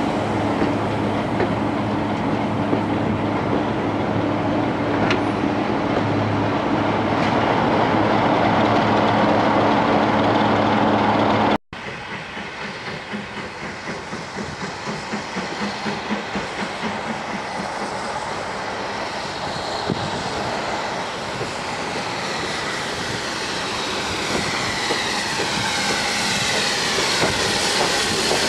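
Railway sounds beside a steam-hauled train: first a steady hum and hiss alongside the coaches. Then, after a sudden cut, the BR Standard Class 4MT steam locomotive 76084 approaches with its train, with a regular rhythmic beat that grows louder as it runs into the platform.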